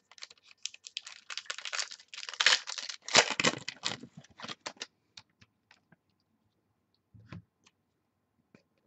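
Trading cards and their pack wrapper being handled: dense rustling and crinkling for about five seconds, then a few scattered light clicks and taps.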